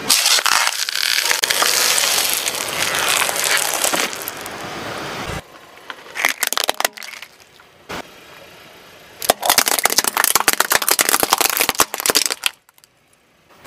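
A car tyre crushing objects on asphalt. First a long run of crunching and crackling as a candy-covered ball is pressed flat, then a few sharp cracks, then a dense burst of crackling as small plastic packs are flattened.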